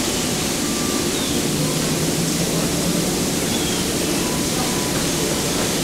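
Steady rushing noise, even and unbroken, with no distinct events.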